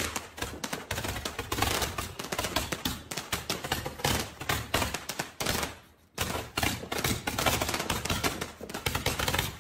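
Handheld fireworks tube firing: a dense, rapid run of crackling pops, breaking off briefly about six seconds in and then carrying on.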